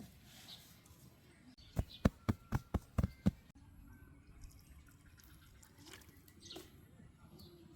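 A quick run of about seven sharp knocks, roughly four or five a second, lasting about a second and a half, over a faint background.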